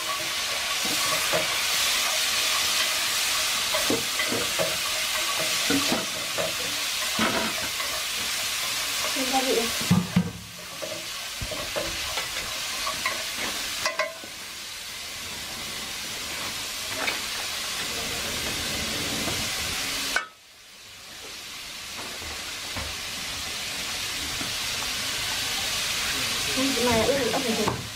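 Apple snails stir-frying with lemongrass and chili in a hot wok, sizzling steadily while a wooden spatula scrapes and knocks against the pan. The sizzle drops away sharply a few times, most deeply about two thirds of the way through, and builds back up.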